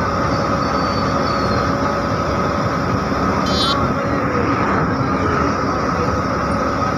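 Steady engine and road noise inside a moving bus, an even rumble that does not rise or fall. A brief high-pitched beep sounds about halfway through.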